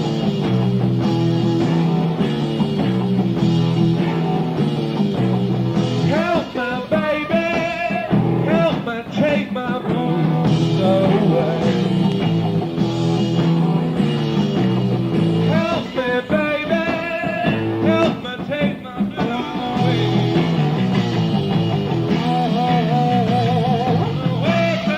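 Rock band playing live in a lo-fi 1971 bootleg recording: a repeating bass and electric-guitar riff, with a wavering lead line bending in pitch over it a few times.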